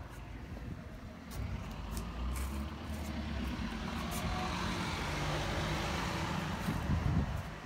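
A motor vehicle driving past on the street, its engine rumble and tyre noise swelling about a second and a half in and easing off near the end.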